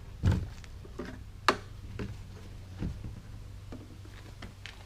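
A few handling knocks and one sharp click from a gasoline can being handled to fill a lawnmower, over a low steady hum.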